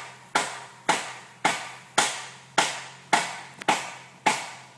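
Sharp knocks or slaps repeated evenly about twice a second, each ringing briefly, over a low steady hum.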